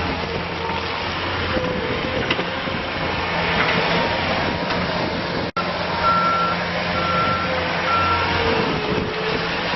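Bobcat S510 skid steer's diesel engine running steadily, with its backup alarm beeping three times in the second half. The sound cuts out for an instant a little past halfway.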